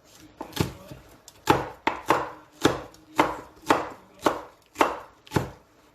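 Knife chopping on a cutting board in steady strokes, about two sharp knocks a second.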